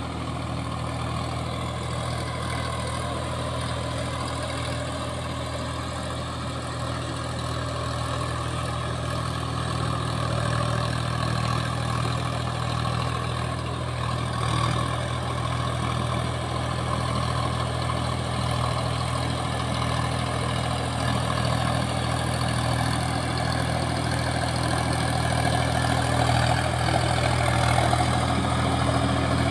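Sonalika 47 RX 4WD tractor's diesel engine running steadily under load while it drives a rotavator through flooded paddy mud, growing louder toward the end as it comes closer.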